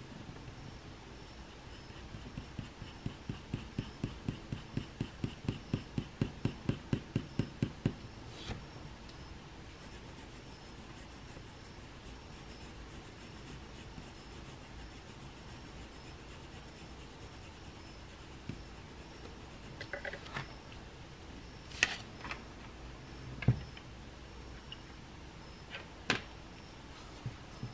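Pencil shading on paper: quick back-and-forth strokes, about three a second, for several seconds. Then fainter drawing, with a few short taps near the end.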